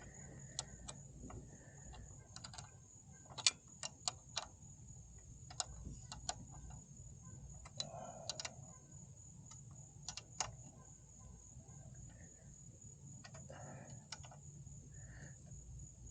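Scattered light clicks and taps, a dozen or so at uneven intervals, over a steady high-pitched insect chirring.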